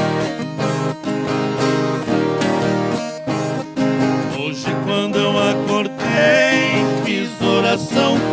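Instrumental break in a sertanejo raiz song: viola caipira and acoustic guitar strummed and picked in a steady rhythm.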